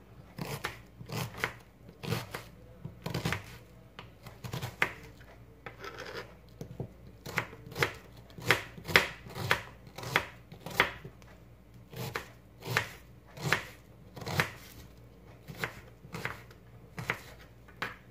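A kitchen knife slicing and dicing a red onion on a cutting board: sharp taps of the blade striking the board, a little under two a second, with a brief pause about six seconds in.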